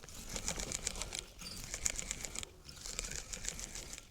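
Fishing reel being wound in: a rapid, fine clicking that runs in stretches with short breaks.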